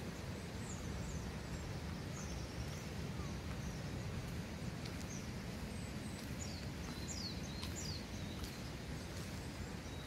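Outdoor ambience: a steady low rumble, with faint bird calls. The calls are short descending chirps, several of them about seven to eight seconds in.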